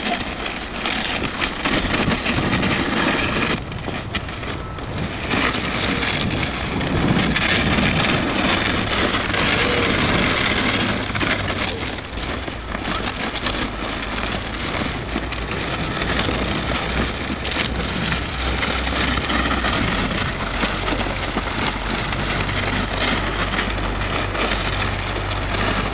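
Plastic sled sliding over snow: a continuous scraping rush, briefly easing twice.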